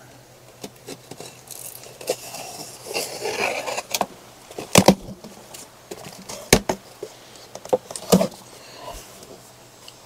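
A knife slitting packing tape on a cardboard box, with a scraping, tearing stretch, then the cardboard flaps being pulled open with rustles and three sharp knocks.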